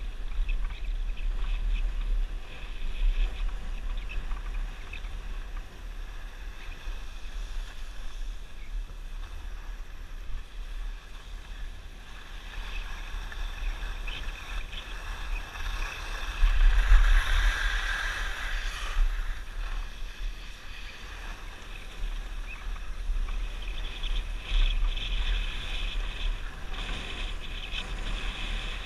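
Skis hissing and scraping over packed snow during a downhill run, with wind rumbling on the camera microphone. The scraping swells for a few seconds just past the middle, as on a hard turn.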